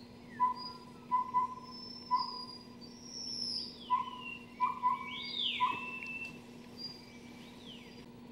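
Collared owlet song: two phrases of four short, even-pitched whistled hoots, each phrase going single, double, single. Higher, fainter songbird whistles sweep up and down around the hoots.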